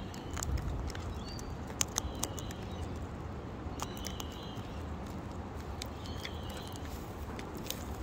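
Sulphur-crested cockatoo eating seed from a hand-held plastic pot: irregular sharp clicks and taps of its beak cracking seeds and knocking the pot. A few faint high chirps come in and out.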